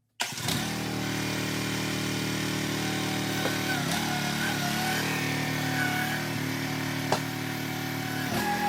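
Small engine of a towable mini-excavator running steadily, cutting in abruptly just after the start. Its pitch dips and wavers briefly around the middle, and two sharp clicks come at about three and a half and seven seconds in.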